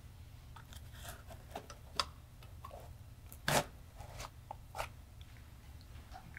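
Objects being handled in a foam-lined carrying case: scattered light clicks, taps and rustles, with one louder knock about three and a half seconds in, over a low steady room hum.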